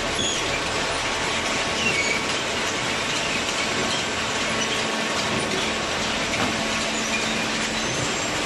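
Hydraulic cardboard baler and its conveyor running: a steady mechanical din with short high squeaks here and there.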